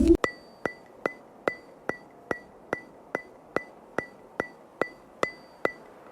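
Steady ticking percussion in the soundtrack: about fourteen sharp, even clicks, roughly two and a half a second, each with a brief high ring, like a clock or wood block. The ticks stop shortly before the end.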